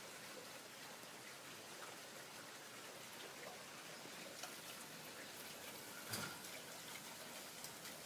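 Steady heavy rain falling, an even hiss of drops, with one louder tap or drip about six seconds in.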